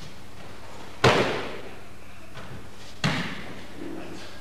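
An aikido partner being thrown onto training mats: two loud slaps of the body landing on the mat, about two seconds apart, the first the louder, each with a short echo.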